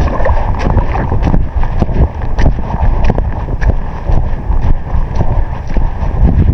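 Wind buffeting the microphone in a loud, steady low rumble, with frequent small knocks and rustles on top.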